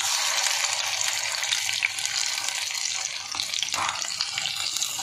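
Liver-and-mince patties sizzling in hot oil in a frying pan: a steady hiss with a few small crackles and clicks.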